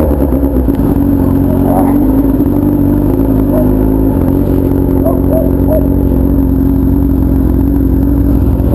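Honda Hornet's inline-four engine running through a loud 3-inch, 4-2-1 aftermarket exhaust, held at a nearly steady pitch while the bike is ridden.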